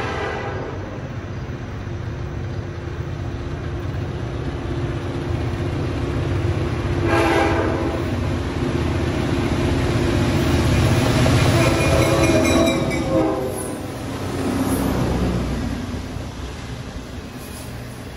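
Horn of the lead EMD GP38 diesel locomotive blowing over the rumble of the approaching locomotives' engines: a short blast about seven seconds in, then a long blast from about ten seconds in that drops in pitch as the locomotive passes. Near the end the loaded sand hopper cars roll by.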